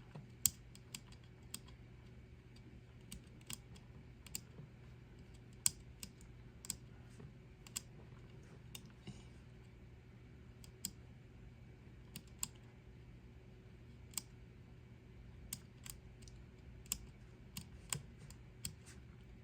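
Small slide switches on a digital-logic lab board being flipped one after another: irregular sharp clicks, roughly one a second, over a faint steady low hum.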